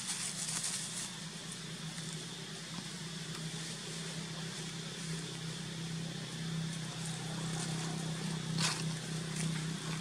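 A steady low mechanical hum under faint rustling, with one brief high squeak near the end.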